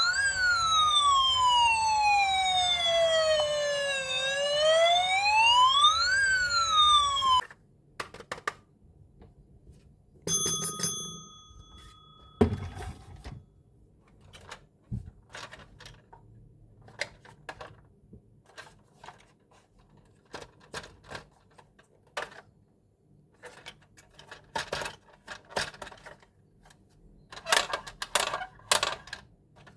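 Electronic wail siren of a toy police car sweeping slowly up and down, cut off abruptly about seven seconds in. A steady electronic tone sounds for about two seconds shortly after. Scattered small clicks and taps follow, like plastic toy parts being handled.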